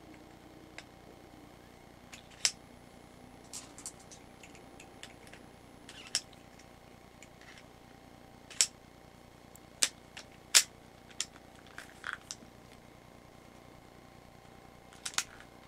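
Metallic clicks and clinks of brass-cased cartridges being pushed into the chambers of a Marushin Taurus Raging Bull gas revolver's cylinder: about a dozen sharp clicks at irregular intervals, with a quick double click near the end.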